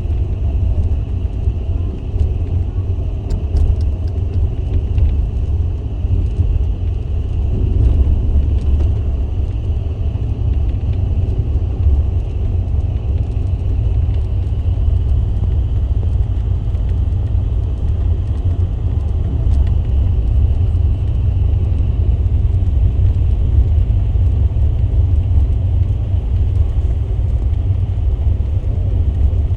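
Car driving at speed on the road: a steady low rumble of road and engine noise.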